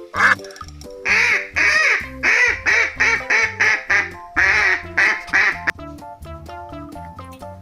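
Duck quacking: a quick run of about a dozen loud quacks, then only music, with children's background music throughout.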